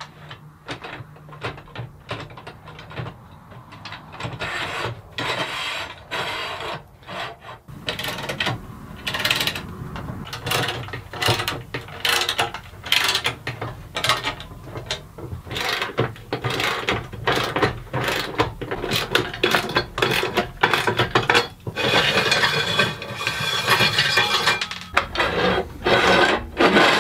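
Ratcheting wrench clicking in quick runs as the carriage bolts holding a Granberg Alaskan chainsaw mill's aluminium rails are loosened and tightened, with metal scraping and knocking as the rails are slid and handled. The clicks are sparse at first and come in dense runs from about eight seconds in.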